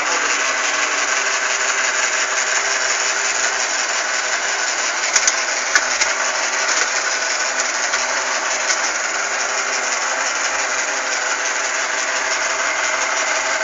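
Sharp Cocorobo robot vacuum cleaner running steadily with a whirring hum as it heads back to its charging base after finishing cleaning, with a couple of sharp clicks about five to six seconds in.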